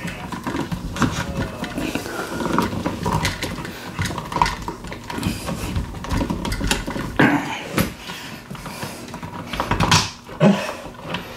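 Handling noise from a dimmer switch's wiring being worked at a blue plastic electrical wall box: irregular clicks, taps and rustles of stiff wires and plastic wire nuts. There are sharper knocks about seven seconds in, and a cluster of knocks and rubbing about ten seconds in, when clothing brushes right against the camera.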